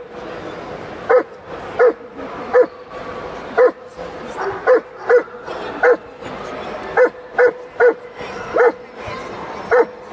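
A dog barking repeatedly: about a dozen short barks of the same pitch, spaced irregularly, some coming in quick pairs and threes.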